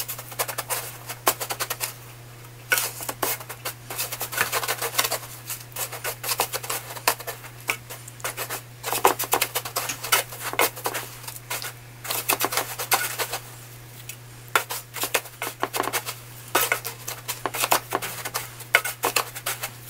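Fingers pressing and rubbing pieces of marinated chicken breast into dry panko breadcrumbs in a stainless steel tray: crisp, scratchy crunching in irregular flurries with short pauses between.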